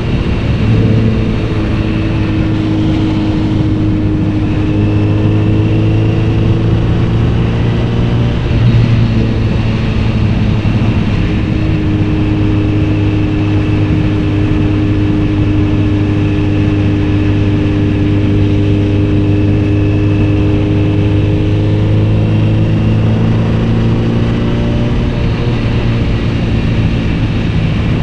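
Kawasaki Z900RS inline-four motorcycle engine and exhaust, fitted with a BEET aftermarket exhaust, running at a fairly steady engine speed. Its pitch shifts slightly about a second in, again around nine seconds, and near twenty-three seconds.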